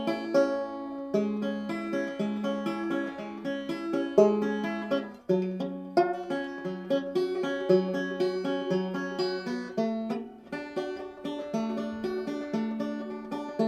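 Ibanez B200 banjo played by hand, a continuous run of plucked notes, several a second, after its broken neck was repaired with glue and finishing nails.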